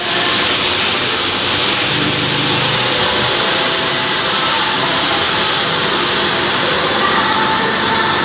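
Packing machine with its weigher running steadily: a loud, even mechanical noise with faint steady tones above it.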